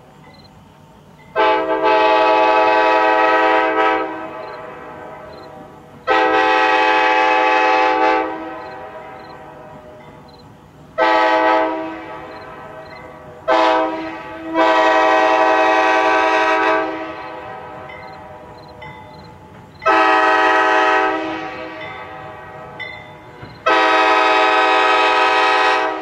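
Locomotive air horn sounding in repeated blasts: two long blasts, a short one, a brief toot followed by a long blast, then two more long blasts, each starting and stopping sharply. A low steady rumble from the approaching train lies underneath.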